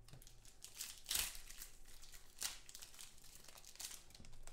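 Foil trading-card pack wrapper crinkling and tearing in the hands as it is opened and crumpled, in a run of irregular crackles, the loudest about a second in.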